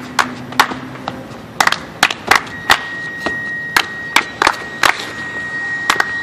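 Sharp hand claps, unevenly spaced at about two or three a second, with a thin steady high tone joining about halfway through.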